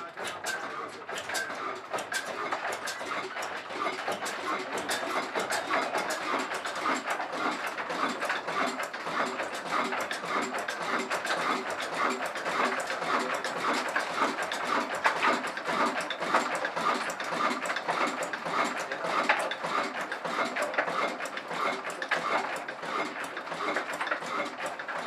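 Old Ruston & Hornsby horizontal single-cylinder diesel engine running steadily, a regular beat about twice a second with fast mechanical clicking over it.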